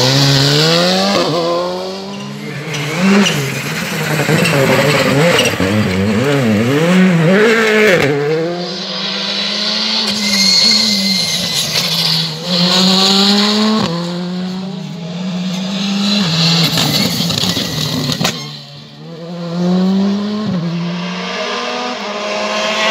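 R5 rally cars' 1.6-litre turbocharged four-cylinder engines accelerating hard, one car after another, the engine note climbing and dropping back at each upshift, with a stretch of quick throttle blips along the way.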